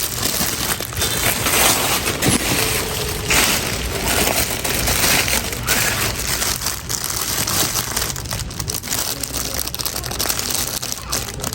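Plastic packaging crinkling and rustling as toys are handled, with irregular crackles throughout.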